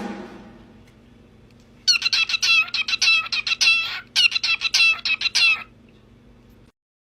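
A bird chirping in two quick runs of short, high, repeated notes, after a drum roll dies away at the start.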